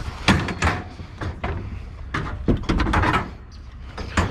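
Heavy chairs being handled and moved, giving a string of irregular knocks and clunks.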